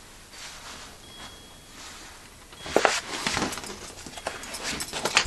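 Painted boards and paper in a stack being handled and leafed through: rustling, scraping and light knocks that begin about halfway through, after a quiet stretch of room hiss.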